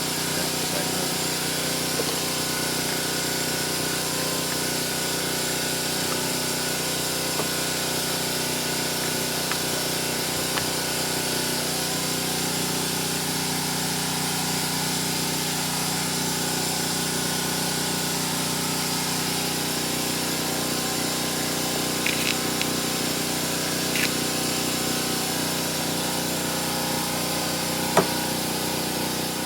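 Steady machine hum with hiss, holding constant throughout, with a few faint clicks and taps from hand-tool work.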